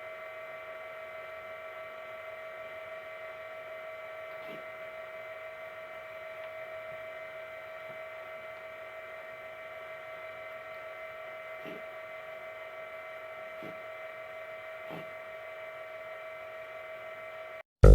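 Steady electrical hum at one unchanging pitch with a stack of overtones, cutting off abruptly just before the end, with a few faint soft knocks under it.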